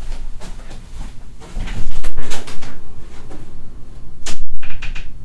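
Knocking, thudding and rustling clatter of objects being handled and moved about, with loud bursts about two seconds in and again a little after four seconds.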